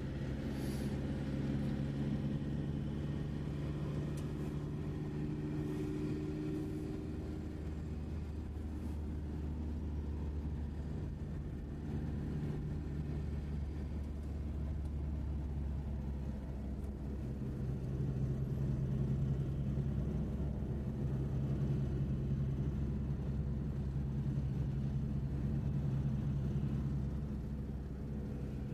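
Steady engine hum and tyre noise inside a vehicle cabin driving at speed, with the windows closed. The hum shifts slightly in pitch now and then as the engine speed changes.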